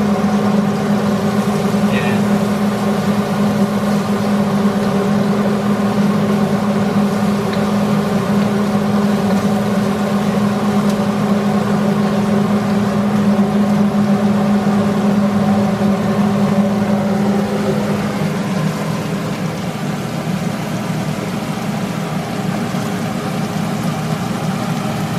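Kitchen range hood exhaust fan running with a steady droning hum, over onion, garlic and ginger sizzling in oil in a wok.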